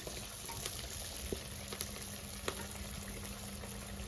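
Sel roti deep-frying in hot oil: a steady sizzle with a few sharp pops.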